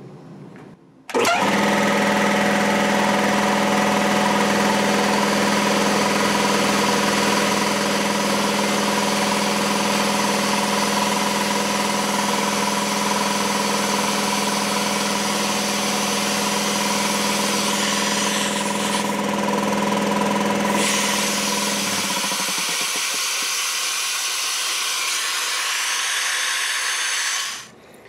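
A Kobalt 80-gallon electric air compressor's motor and pump start about a second in and run steadily, with a strong hum and a hiss. About 22 seconds in the low hum drops out, and the rest stops suddenly near the end. A fitting was left out when the new pressure switch was installed, so the compressor is running with an open port.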